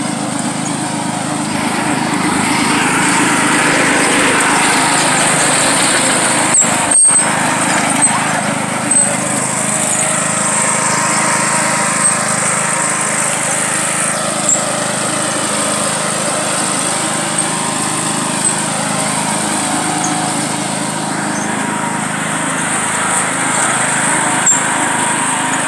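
John Deere riding lawn mower's engine running steadily while it tows people on a rope. The sound drops out for an instant about seven seconds in.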